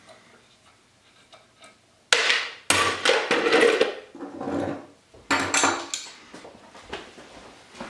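Metal hand tools, locking pliers and a screwdriver, clattering and scraping against a metal bracket and the wooden workbench. The loud bursts start suddenly about two seconds in and come again around five seconds.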